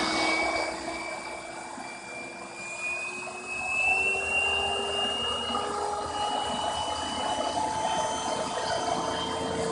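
Vacuum cleaner motor running off a hair dryer's speed-control circuit, its whine rising slowly in pitch as the control is turned up and the motor speeds up.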